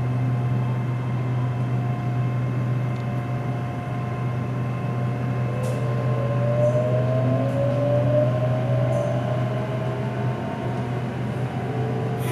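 SRT Red Line electric commuter train running, with a steady low hum and a whine from its drive that glides up in pitch for a few seconds midway.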